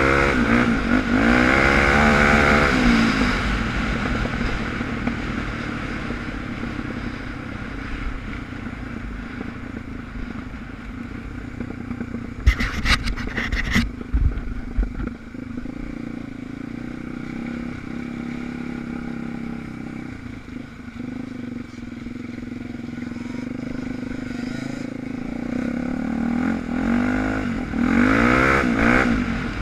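Suzuki DR350 single-cylinder four-stroke dirt bike engine running under way, revving up and down during the first few seconds and again near the end, steadier in between. A short cluster of sharp knocks and rattles comes about halfway through.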